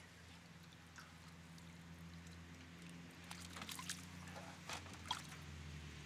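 Faint water splashing and sloshing at the side of a small remote-control fishing boat as a hooked fish thrashes at the surface, with a few short, sharp splashes in the second half and a steady low hum underneath.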